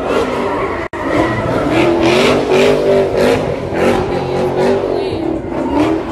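Muscle car's V8 revving hard with its rear tires squealing as it spins donuts, the engine pitch wavering up and down through repeated surges. The sound cuts out for an instant about a second in.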